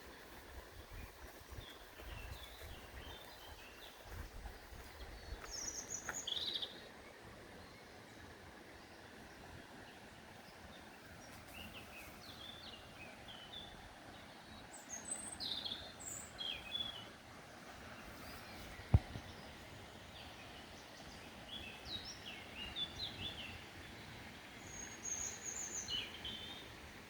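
Small birds singing and chirping in short bursts of high notes, coming in several clusters over a quiet outdoor background. A low rumble sits under the first few seconds, and a single sharp click stands out about two-thirds of the way through.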